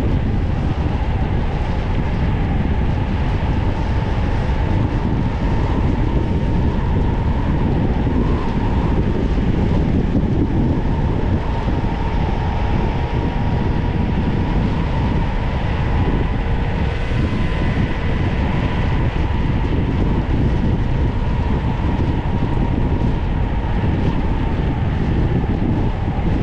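Wind rushing over the microphone and tyre noise of a bicycle descending fast on an asphalt road, with a steady faint whine running throughout.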